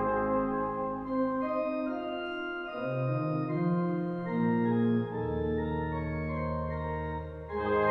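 Viscount digital organ playing alone: a series of held chords, with a low bass note coming in about five seconds in and a short drop in level just before the end.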